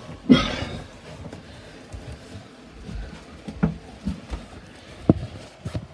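A loud, brief rustle just after the start, then a few scattered sharp knocks: camera handling noise as it is moved and bumped about in the cramped space under a sailboat's cockpit.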